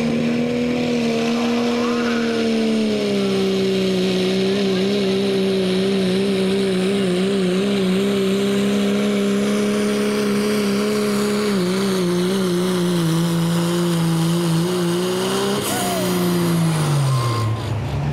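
Turbocharged diesel pickup truck engine running flat out under the load of a pulling sled: a steady, loud engine note that wavers slightly and sags slowly as the load builds. Near the end the pitch drops sharply as the throttle comes off at the end of the pull.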